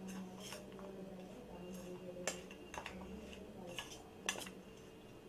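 A spoon clinking and scraping against a bowl as chopped onion, tomato, chilli and spices are stirred together, with several sharp clinks, the loudest a little after two seconds in and a little after four seconds in.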